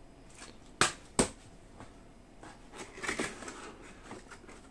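Two sharp clicks about a second in, followed by light rustling and small knocks as parts and packaging from a model ship kit are handled and set down.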